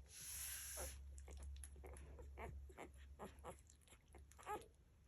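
Young Labrador puppies squeaking and whimpering while nursing, with short high squeals coming every fraction of a second. A burst of hiss fills the first second, over a steady low hum.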